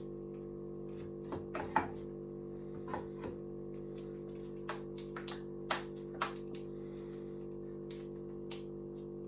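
Soft background music with steady held notes, over which come scattered light clicks and knocks, the sharpest about two seconds in and again around six seconds in.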